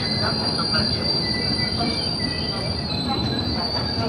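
Indian Railways sleeper-class coaches rolling slowly past on the rails, with a steady rumble and a continuous high-pitched wheel squeal that drops slightly in pitch about three seconds in.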